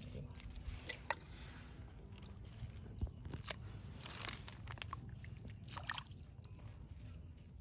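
Shallow water sloshing in a woven bamboo basket as it is handled, with scattered crackles and clicks from the wet bamboo and plants, about a dozen of them, the sharpest near one second in and around three and a half seconds in.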